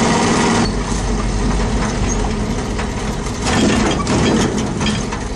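Engine and road noise of a 1969 GMC pickup heard from inside the cab while driving on a road test after a carburetor rebuild; about a second in the engine note drops to a deeper, lower sound.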